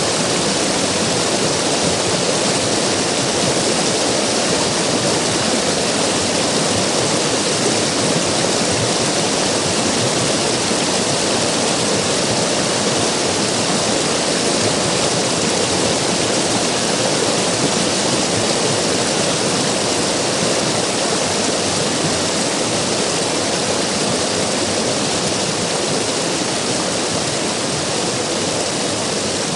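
River water rushing, a steady, even rush with no breaks.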